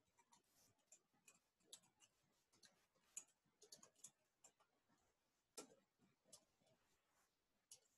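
Faint, irregular keystrokes on a computer keyboard during typing, with one heavier keystroke about five and a half seconds in.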